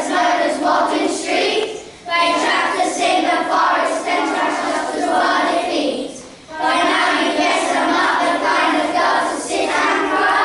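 A group of children's voices in unison, singing or chanting together, with a short break about two seconds in and another about six seconds in.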